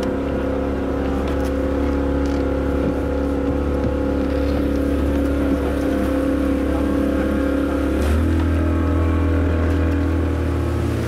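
A river boat's motor running steadily under way, with a steady stack of engine tones. About eight seconds in its note changes and gets a little louder.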